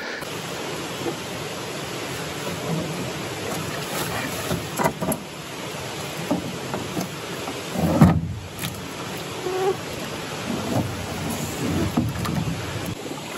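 Canoe lowered from a portager's shoulders into a shallow creek, with a steady rush of water and wading splashes, and a loud low thud about eight seconds in as the hull comes down onto the water.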